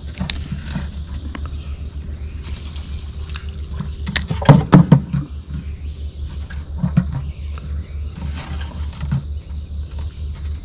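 Spinning rod and reel being handled and cast, with a cluster of clicks and knocks about four to five seconds in. Under it runs a steady low throbbing, and a thin high insect-like trill joins about halfway.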